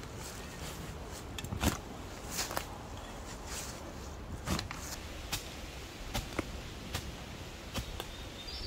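A shovel striking and scraping into root-filled forest soil, with irregular sharp chops about once or twice a second.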